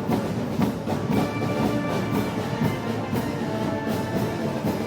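A festival brass band playing live: held brass notes over a steady drum beat.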